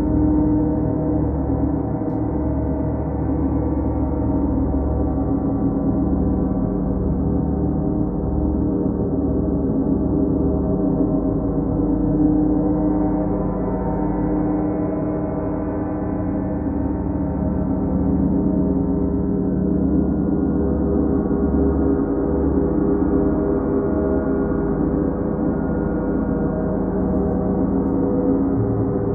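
Large planet gongs sounding together in a continuous, steady wash of overlapping sustained tones, with a deep pulsing hum underneath and no sharp single strike standing out.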